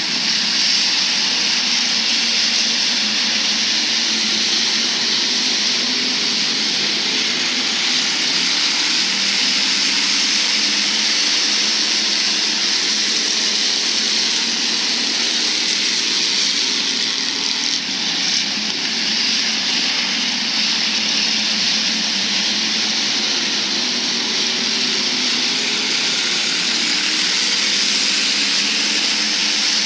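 A field of Hobby Stock race cars running at racing speed, their engines making one steady, continuous din whose pitch wavers as the cars go around the track.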